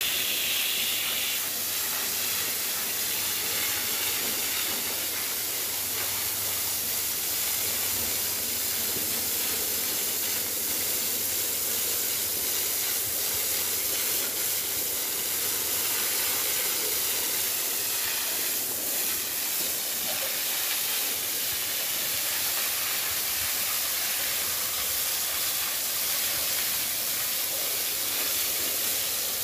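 A hose jet of water spraying over cattle, a steady hiss of spray hitting and running off the animals.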